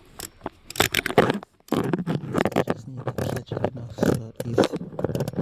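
Rapid irregular clicking and scraping of a hand tool turning a screw into the plastic mounting tabs of a car's cooling-fan controller module, with a short pause about one and a half seconds in.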